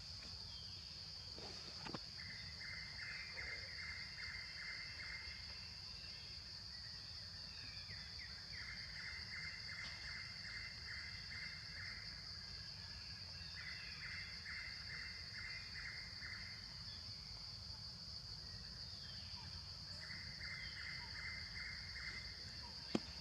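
Steady high-pitched insect drone, with four bouts of a rapid pulsed chirping call, about three to four pulses a second, each bout lasting a few seconds, over a faint low rumble.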